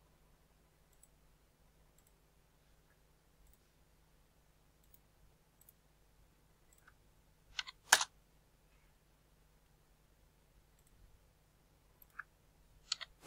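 Computer mouse buttons clicking now and then over a faint steady low hum. The clicks are faint at first, with a louder pair about eight seconds in and a couple more near the end.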